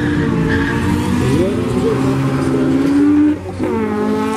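Car engines revving hard at a drag-race start line, the pitch held high. About three and a half seconds in it drops briefly, then one engine climbs steadily in pitch as the car accelerates away.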